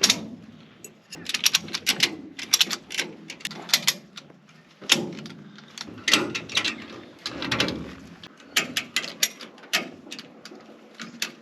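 Irregular clattering and knocking of parts being handled on an old Holden VH Commodore body: many sharp clicks and rattles in clusters, with a few duller thuds.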